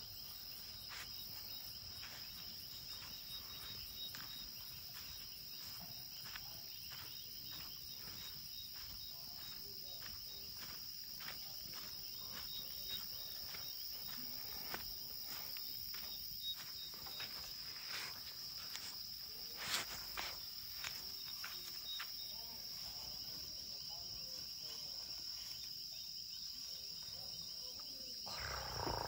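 Crickets calling through the night in a steady high trill, with faint voices and laughter of people far off and soft footsteps about once a second.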